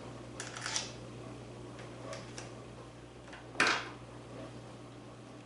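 Small clicks and taps of a screwdriver and a rifle being handled, with one sharper clack about three and a half seconds in, as the screwdriver is fitted to the rifle's stock screw.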